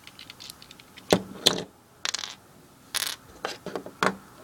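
Plastic Lego pieces clicking and clattering as they are handled and fitted together: a run of sharp clicks with small rattling ticks between, the loudest about a second in, near a second and a half, at three seconds and just after four seconds.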